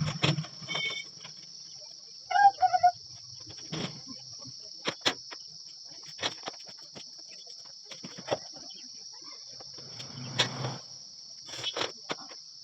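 Steady high-pitched drone of crickets, with scattered light clicks and taps from hands handling parts, and a brief chirp about two and a half seconds in.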